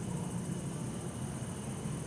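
Steady low hum of distant road traffic, with bell crickets trilling faintly and continuously above it.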